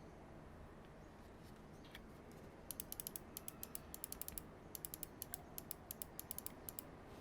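Typing on a Mystic Works Wyvern mechanical keyboard with a brass plate and PBT keycaps: a quick run of sharp keystroke clicks, starting a few seconds in after faint hiss, with a short pause midway.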